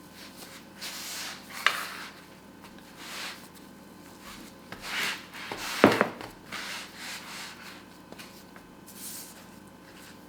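Hands kneading a crumbly butter-and-almond cookie dough on a work surface: irregular rubbing and pressing swishes, with a sharp knock about two seconds in and a louder thump of the dough near the middle.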